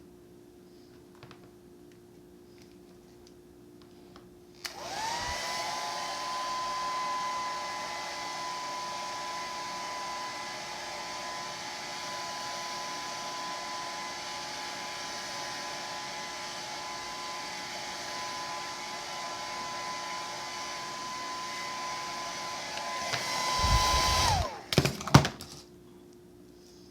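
Hand-held hair dryer switched on about five seconds in, its motor whining steadily with a blowing hiss, then switched off near the end with its pitch falling as it winds down. A few loud low rumbles and knocks come just as it stops.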